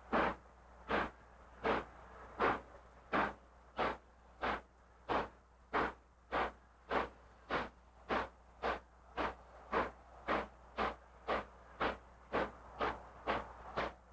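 Southern Pacific 4449, a GS-4 4-8-4 steam locomotive, working hard as it backs its passenger train, with sharp exhaust chuffs at a steady beat. The beat quickens from under one and a half chuffs a second to more than two a second as the engine picks up speed. Each chuff is loud, which fits the locomotive struggling to shove the train in reverse.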